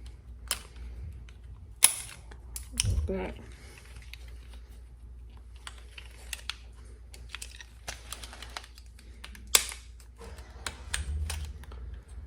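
Plastic clips on an old Fiat 500 outer door handle clicking and snapping as its black plastic piece is pried off to free the lock cylinder. Scattered small clicks, with a sharp snap about two seconds in and another about ten seconds in.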